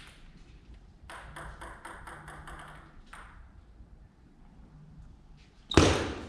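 Celluloid-type table tennis ball bouncing, a quick run of light pinging ticks for about two seconds, then a single loud knock near the end.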